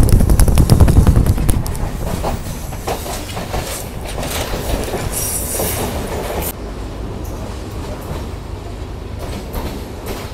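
Sri Lankan Railways passenger train running, its wheels clattering over the rail joints, loudest in the first second and a half. A brief high wheel squeal comes about five seconds in, and the rattle then grows quieter as the train slows into a station.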